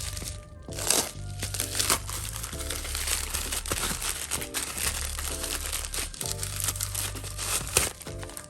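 Packaging crinkling and rustling as a parcel is unwrapped, in irregular handling noises with a few sharper crackles, over background music with a steady low beat.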